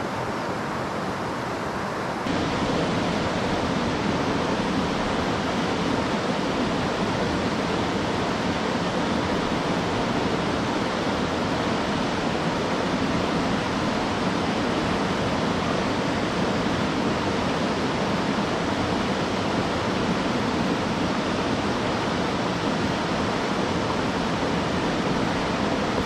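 Steady rush of a rocky mountain stream and its small cascade, getting louder and fuller about two seconds in.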